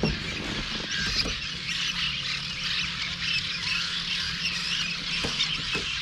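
Many birds around a bridge calling at once: a dense, continuous chatter of short, high squeaky calls.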